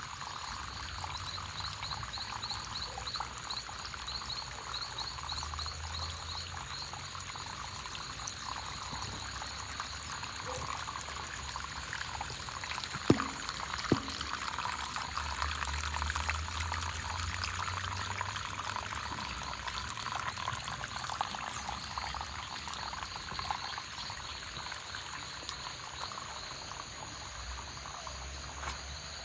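Rain runoff pouring and trickling off a neighbouring property in a steady rush, with small animals calling over it: a fast pulsing trill in the first several seconds and a steady high whine. Two sharp clicks come about halfway through.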